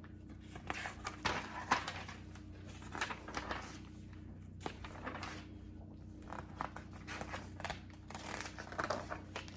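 Paper rustling and light taps as a picture book is handled and its pages are turned, in short, irregular crinkles.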